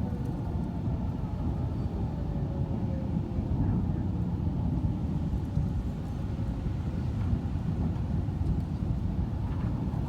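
Low, steady rumble of a thunderstorm rolling in, wind and distant thunder. An outdoor tornado warning siren fades as it winds down at the very start.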